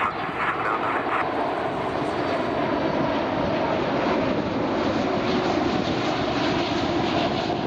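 Jet engines of a Swiss Airbus A330-300, Rolls-Royce Trent 700s, on final approach. They make a steady roar with a droning hum underneath.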